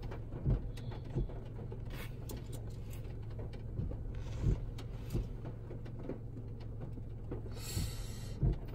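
Car cabin: a steady low hum with scattered light taps, and short soft hisses about four seconds in and near the end.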